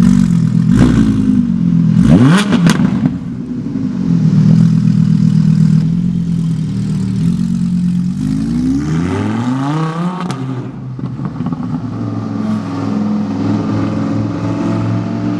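Audi R8 with an aftermarket Soul Performance exhaust, its engine blipped twice in quick rev rises early on, then climbing in pitch about nine seconds in before settling into a steady loud drone. The exhaust is really loud.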